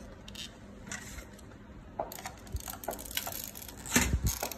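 Handling noise: scattered light clicks, knocks and rubbing as hands move the camera about on a desk, growing busier about halfway and loudest near the end.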